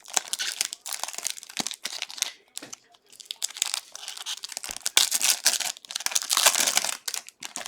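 Plastic wrapping on a trading card box being torn open and crinkled, in rapid crackling bursts that are loudest during the last few seconds.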